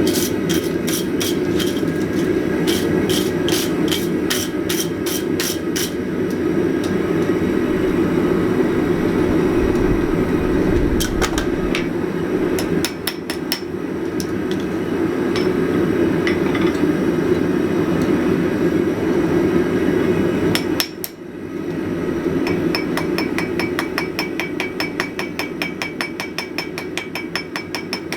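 Hammer striking hot flat steel hinge stock on an anvil: runs of ringing blows near the start and again around the middle, then a fast run of lighter ringing taps near the end. Under it runs the steady noise of the forge, which drops out briefly about two-thirds of the way through.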